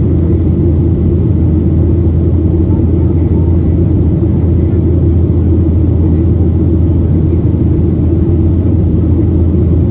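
Steady cabin noise of a Boeing 737-800 in flight, heard from a window seat over the wing: a loud, even low drone from its CFM56-7B turbofan engines and the rush of air past the fuselage.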